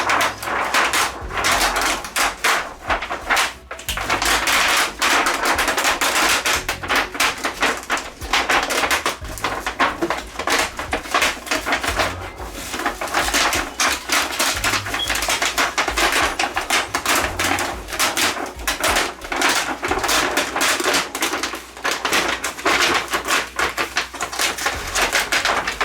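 Dense, rapid crackling and rustling of a TV's thin white reflector sheet as it is worked loose and pulled out from over the LED backlight strips.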